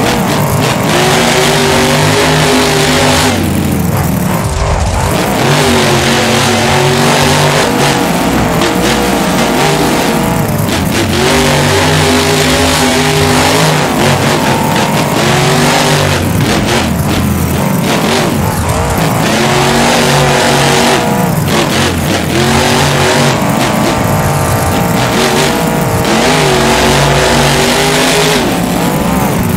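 Monster truck engine revving hard, its pitch climbing and falling over and over in surges a few seconds apart, very loud.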